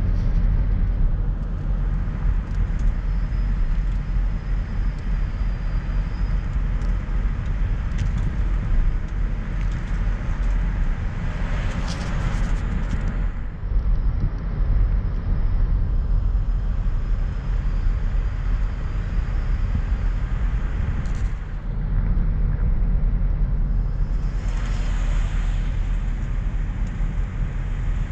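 Car driving slowly, heard from inside the cabin: a steady low rumble of engine and tyres, with a louder hiss swelling briefly near the middle and again near the end.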